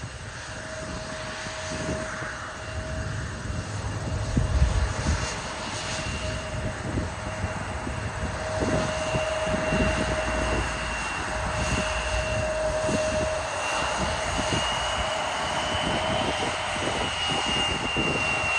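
Embraer E175 regional jet's twin turbofan engines running with a steady high whine over a broad rush as the jet rolls along the runway, growing slowly louder. Gusts of wind buffet the microphone in the first few seconds.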